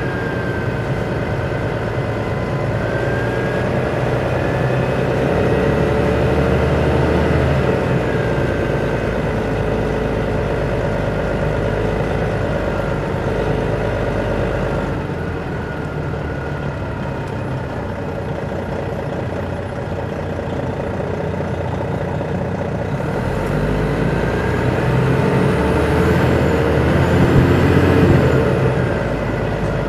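Detroit Diesel Series 60 diesel engine of an MCI D4000 coach, heard from the rear seats inside the bus, pulling under load through its Allison automatic transmission. The engine builds up in pitch a couple of seconds in, eases off through the middle, then pulls again near the end, loudest just before it drops away.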